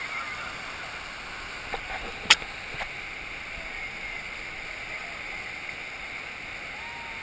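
Whitewater rapid rushing steadily. A few sharp clicks come around two seconds in, one of them a loud knock.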